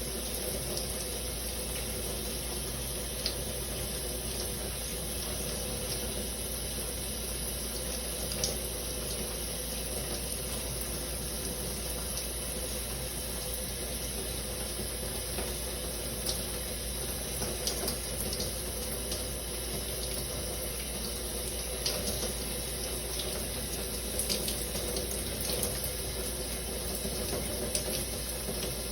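Shower running steadily, water spraying down in an even hiss, with a few short sharp splats now and then, more often in the second half.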